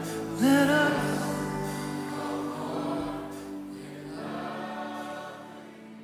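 Live worship music at the close of a song: sustained band chords with voices singing, a held sung note coming in about half a second in, then everything fading out.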